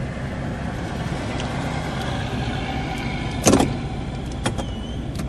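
Pickup truck engine idling, heard from inside the cab, with a loud clunk about three and a half seconds in and a lighter click a second later as the column shift lever is worked into reverse. Near the end the truck's backup alarm gives its first short beep, the sign that it is now in reverse.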